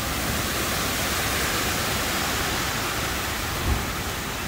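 Heavy rain and wind in a thunderstorm, a steady rushing hiss, with a short low thump about three and a half seconds in.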